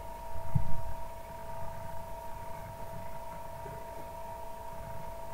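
Steady two-tone electrical whine over a low background rumble, with one soft low thump about half a second in.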